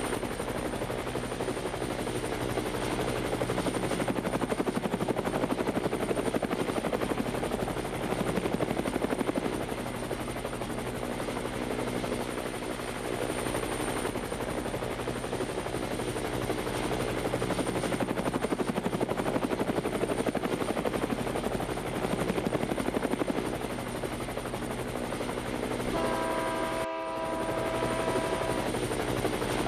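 Yuneec quadcopter's propellers and motors whirring steadily. Near the end a train horn sounds, several steady tones held together.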